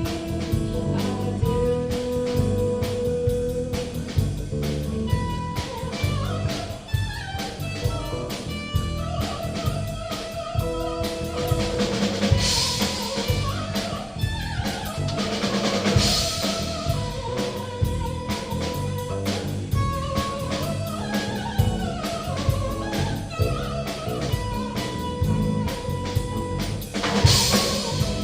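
Live rock band playing with no singing, the drum kit keeping a steady beat under held melody notes, and three loud cymbal crashes, the last near the end.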